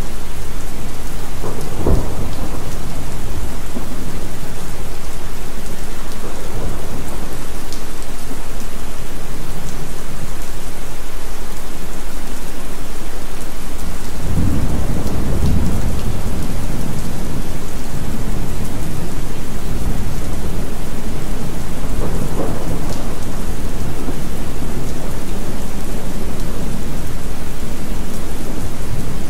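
Steady heavy rain with low rolling thunder: one rumble about two seconds in, a longer, stronger one around the middle, and another later.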